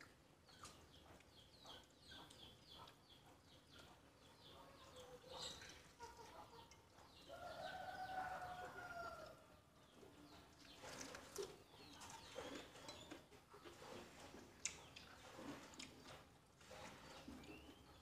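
Faint bird calls in the distance: quick high chirps in the first few seconds and one longer pitched call about eight seconds in. A few soft clicks follow later.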